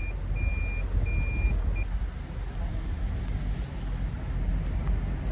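Car cabin noise: a steady low rumble from the moving car, with a few short high electronic beeps from the car's chime in the first two seconds.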